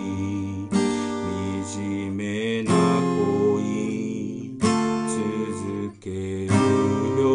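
Steel-string acoustic guitar with a capo, chords struck with the fingers about every two seconds and left to ring: an instrumental passage between sung lines.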